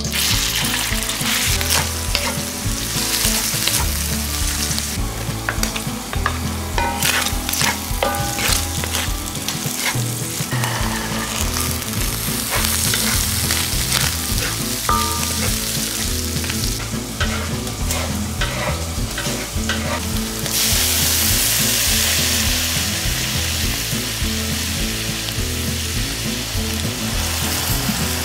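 Minced pork and diced long beans sizzling in a hot wok as they are stir-fried, with a wooden spatula scraping and clicking against the pan. The sizzle is at its loudest about two-thirds of the way through.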